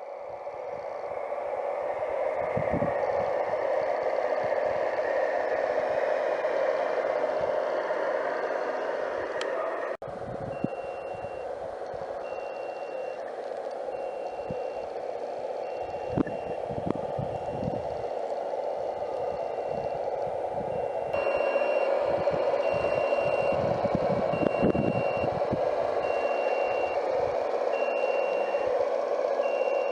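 Radio-controlled scale suction excavator truck running with a steady drone. About ten seconds in, a reversing beeper starts, beeping about once a second. The drone gets louder about two-thirds of the way through.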